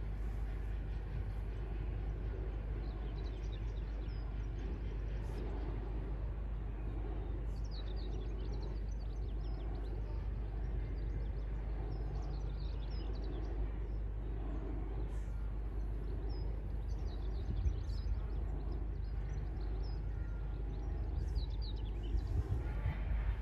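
Large wind turbine's blades swishing round, a soft whoosh about once a second over a steady low rumble, with small birds chirping.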